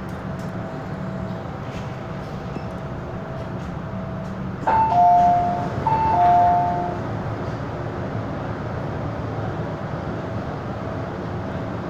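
MTR Island Line M-Train running, with a steady rumble and a faint motor whine. About five seconds in, a two-note chime sounds twice over the train's speakers, the second note lower than the first each time.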